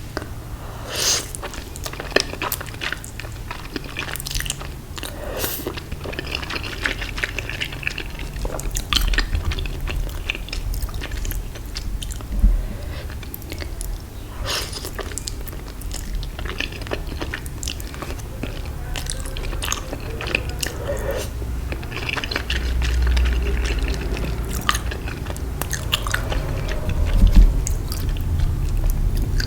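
Close-miked eating: a person biting and chewing food, with irregular crunches and mouth clicks.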